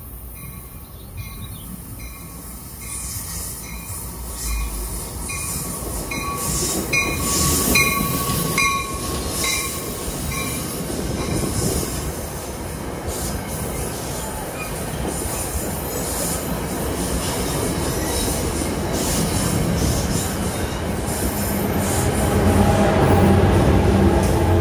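New Jersey Transit push-pull train passing at the platform, wheels rumbling and squealing on the rails. A quick, regular ticking is heard over the first several seconds, and the sound grows steadily louder. Near the end the electric locomotive pushing at the rear passes with a steady whine.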